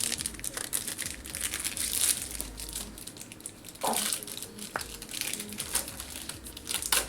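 Foil Yu-Gi-Oh booster pack wrappers being torn open and crinkled by hand, an irregular crackling rustle.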